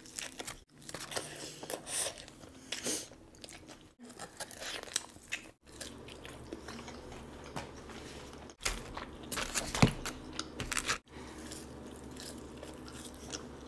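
Close-miked eating of a fried chicken wing: crunchy bites into the crisp skin and wet chewing, with several sudden drop-outs where the audio is cut.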